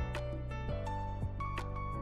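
Instrumental background music, with new notes coming in about every half second.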